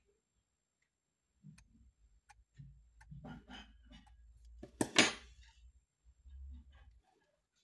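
A thin metal wax instrument clicking and scraping against a wax post-core pattern and the extracted tooth it sits in, working it loose from the tooth, with fingers handling the model block. Small scattered clicks and taps, with one sharp, loud click about five seconds in.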